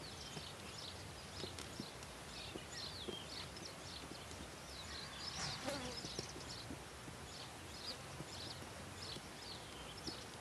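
Faint high chirps, like small birds calling, scattered throughout, with one louder, longer call about five to six seconds in.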